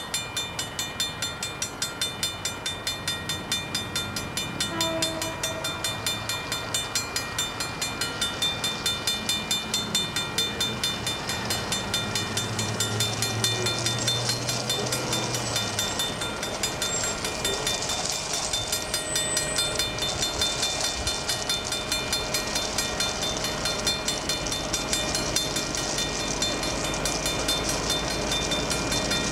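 Mechanical level crossing bell ringing in rapid, even strokes, about three to four a second, while a train goes over the crossing. The train's low rumble is loudest near the middle, and a short, faint horn note sounds about five seconds in.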